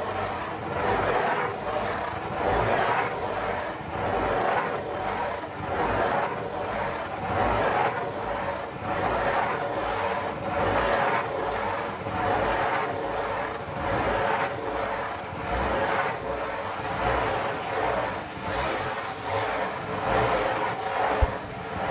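Fingertips scratching in circles on the lid of a corrugated cardboard pizza box, a continuous dry scratching that swells and fades with each circle. A single sharp tap sounds near the end.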